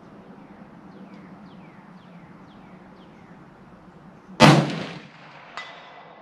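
A single rifle shot from a Ruger American Go Wild in .300 Win Mag, a sharp loud crack with a tail that dies away over about half a second. About a second later comes a second, much fainter crack with a brief ring.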